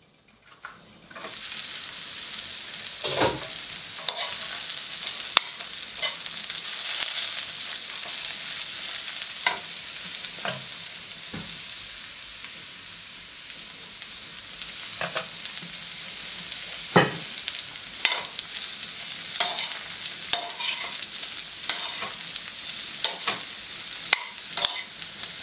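King oyster mushrooms sizzling as they fry in a pan, with a metal spoon knocking and scraping against the pan as they are stirred. The sizzle rises about a second in and then holds steady, broken by sharp clinks of the spoon.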